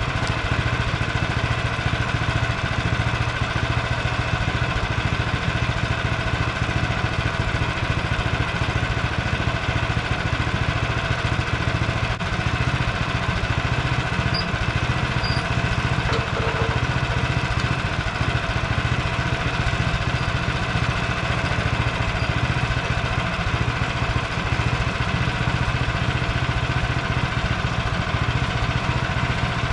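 Frontier OS23 bandsaw mill's gas engine running steadily at an even speed.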